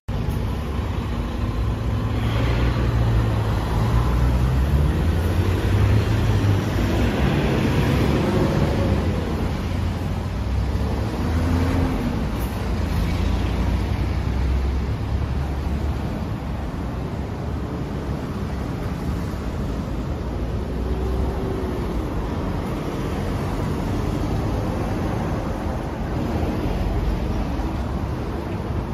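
Kawasaki Z900RS Cafe's 948 cc inline-four idling steadily through its exhaust.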